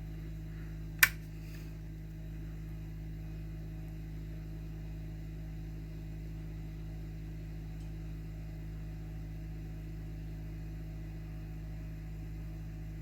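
Steady electrical mains hum from the powered-up controller setup, with a single sharp click about a second in.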